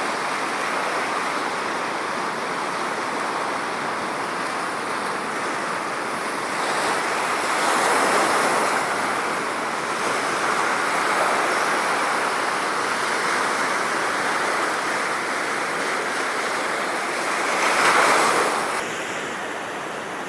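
Big ocean waves breaking: a steady wash of surf that swells louder about eight seconds in and again, most strongly, near the end.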